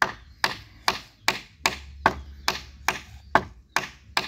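A hammer driving nails into the wooden frame of a garden trellis: a steady run of sharp blows, about two to three a second.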